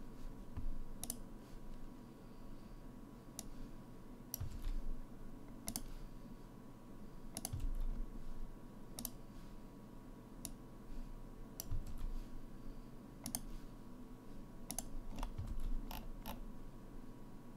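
Irregular single clicks of a computer mouse and keyboard, about a dozen spaced a second or more apart, over a faint steady hum.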